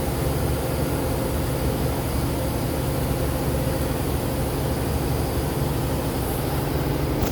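Steady, loud low rumbling noise with a faint hum, unchanging throughout.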